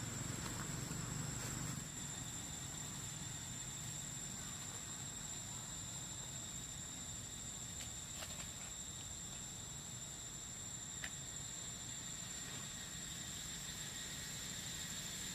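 Steady high-pitched insect chirring, with a few faint clicks and, in the first couple of seconds, a low rumble.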